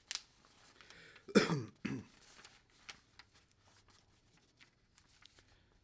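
A man clearing his throat, two short falling vocal grunts about a second and a half in, followed by faint scattered rustling and ticks of papers being leafed through.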